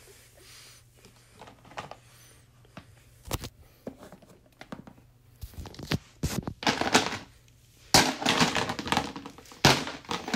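Toys being handled: scattered knocks and clicks, then bursts of rustling and crinkling with thuds that grow busier and louder over the second half.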